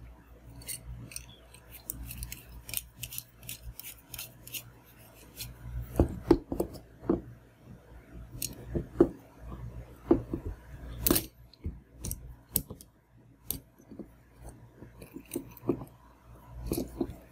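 Handling noise from a microphone and its small tripod desk stand being fitted together by hand: a run of small plastic and metal clicks, taps and rubs, with louder knocks about six and eleven seconds in.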